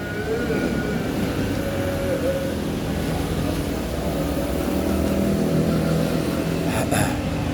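A motor vehicle's engine running steadily with a low rumble, and a short sharp sound about seven seconds in.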